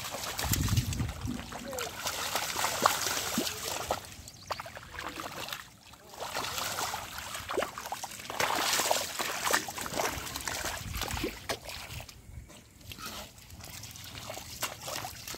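Splashing in shallow muddy water as a person wades and grabs at a fish by hand, in two busy spells with quieter stretches between and near the end.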